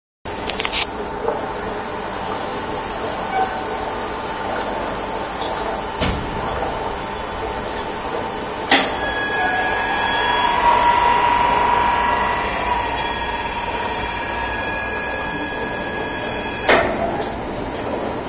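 Industrial ultrasonic cleaning line running: a steady machine hum under a high-pitched hiss and whine that cuts off suddenly about fourteen seconds in. A few sharp clicks or knocks sound along the way.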